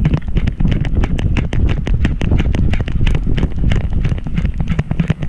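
Rapid rattling knocks and thumps, several a second, over a low rumble: a GoPro Hero 5 on a loosely fitted dog harness, jostled with each stride as a wire-haired fox terrier runs.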